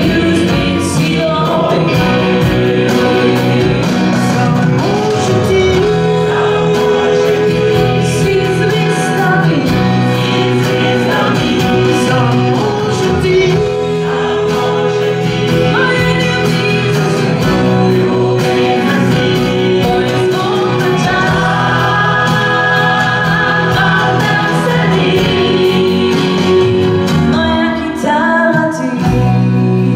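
A mixed choir of men and women singing a song, accompanied by a live band of acoustic guitars, electric guitar, bass guitar and drums.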